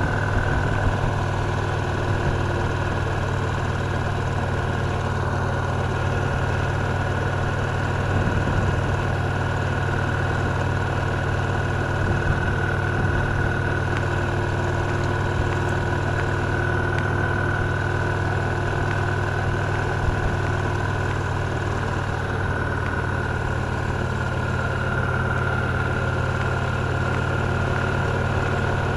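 Victory Cross Roads Classic LE's 1700 cc V-twin engine running steadily at an even pace, with no change in revs.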